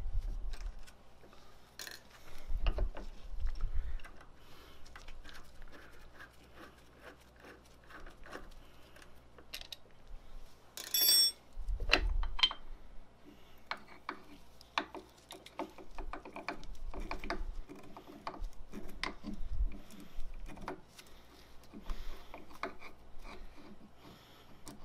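A stepper motor and its metal mounting plate being worked loose and lifted off the Y axis of a CNC mill by hand: scattered metal clicks, taps and knocks with a few dull thumps, and a brief high-pitched sound about eleven seconds in.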